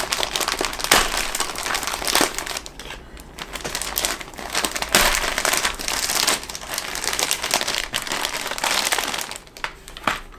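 Plastic packaging crinkling and rustling, with small clicks and snaps, as model-kit parts are unwrapped by hand.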